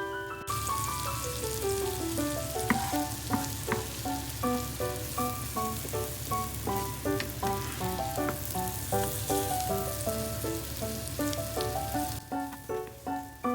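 Food frying in butter in a hot pan, a steady sizzle that starts abruptly about half a second in and cuts off sharply near the end.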